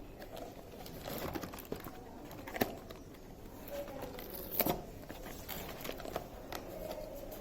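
Hands opening a Beyblade toy box: cardboard and plastic packaging being handled, with a few sharp clicks, the clearest about two and a half and four and a half seconds in.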